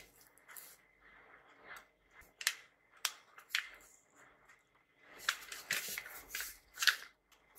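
Paper-wrapped parcel handled in the hands: kraft paper crackling and rustling against the fingers and the twine. A few separate sharp crackles come in the first half, then a longer bout of rustling from about five seconds in.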